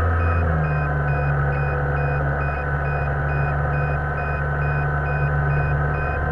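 Steady electrical hum and a high whine with a faint, evenly pulsing beep, picked up by the small camera riding on the RC plane. The hum steps up in pitch about half a second in.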